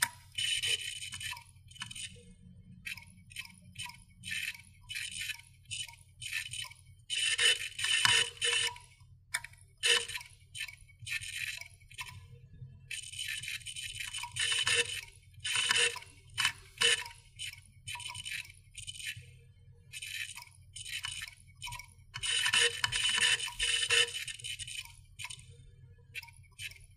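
Scratching and clicking of small hard objects: several bursts of rapid scraping clicks, each a second or two long, with scattered single clicks between them, over a faint steady low hum.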